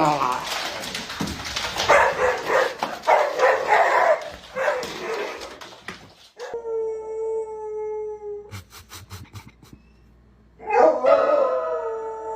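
Dog barking and yelping, then a long steady howl about six seconds in and a second howl near the end.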